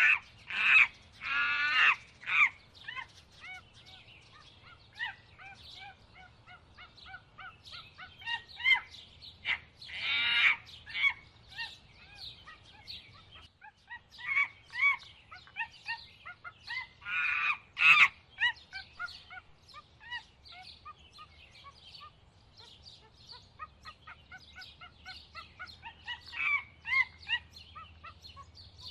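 Birds chirping and calling in a steady chorus of short repeated notes, broken by a few louder, harsh, wavering calls: one just after the start, one about ten seconds in and one around seventeen seconds in.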